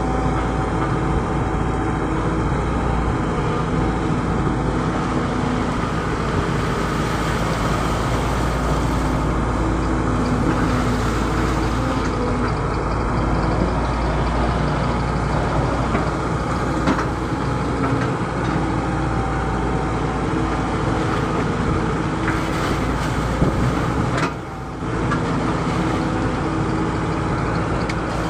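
Hydraulic excavator's diesel engine running steadily as it works, with a few faint knocks and a brief dip in level about three-quarters of the way through.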